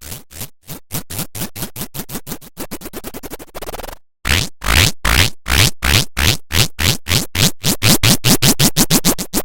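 A short sound effect looped over and over, each repeat a quick rising sweep, the repeats coming faster and faster until they nearly blur together. It cuts off about four seconds in, then starts again more slowly and speeds up again.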